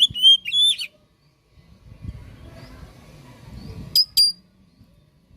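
Oriental magpie-robin singing: a short run of clear whistled notes in the first second that breaks off, then, about four seconds in, two sharp, clipped notes close together.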